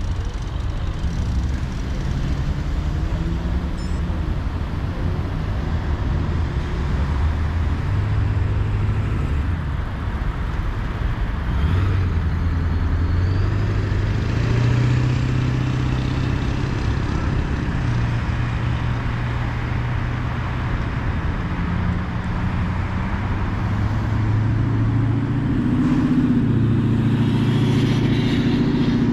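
Road traffic: a steady low rumble of vehicle engines, with engine hums that shift up and down in pitch every few seconds.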